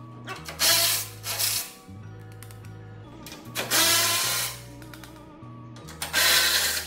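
Four short bursts of a power tool undoing the go-kart's seat bolts, the third and fourth longer, over background music with a steady bass line.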